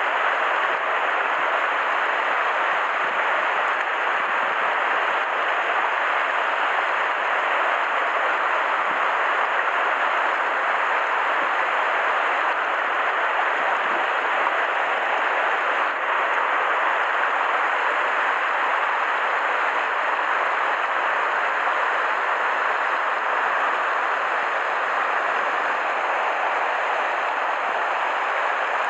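Shallow river water rushing steadily over boulders in a riffle, close by: an even hiss of moving water with no break or change.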